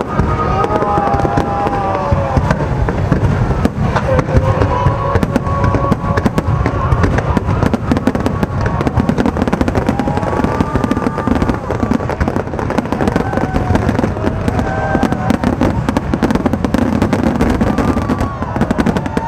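Aerial fireworks display going off in a dense, continuous barrage of bangs and crackles.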